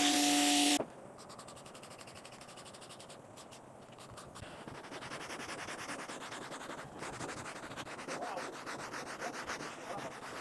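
A brush scrubbing with fast, even rubbing strokes. In the first second a loud motor-driven machine with a steady hum runs and then cuts off.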